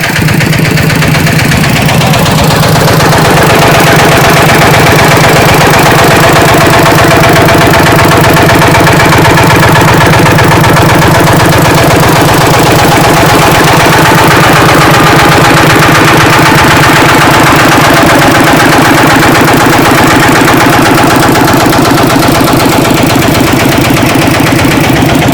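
Diesel engine of a Kubota DC-70G rice combine harvester running steadily, growing a little louder over the first few seconds and then holding an even drone with the machine's mechanical clatter.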